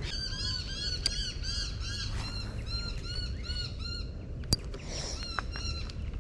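A bird calling in a fast series of harsh, arched notes, about four a second, which stops about four seconds in. A single sharp click follows shortly after.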